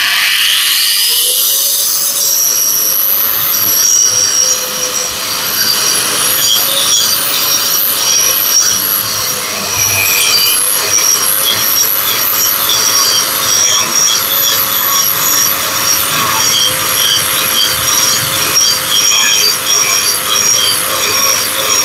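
Caowang CW1336 single-blade wall chaser, fitted with a thick grinding disc, spinning up slowly on its soft start over the first two seconds, then grinding concrete: a loud, steady, harsh whine with rough scraping and a steady hum under it. The unpleasant gear noise under load comes from its three-gear gearbox.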